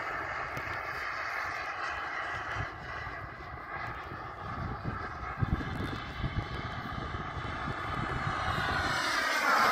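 Model jet flying overhead: a steady high whine made of several stacked tones. Near the end it dips in pitch and grows louder as the plane comes closer. Low wind rumble buffets the microphone underneath.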